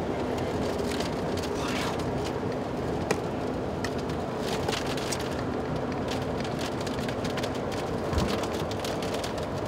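Steady road and engine drone of a car driving at speed, heard inside its cabin, with raindrops ticking on the windshield and roof. A low thump about eight seconds in.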